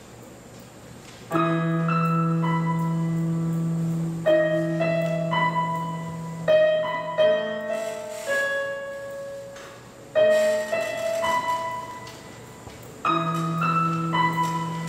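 Casio Privia digital piano playing the slow introduction to a worship song. Sustained chords over a held bass note enter about a second in, with a new chord every few seconds.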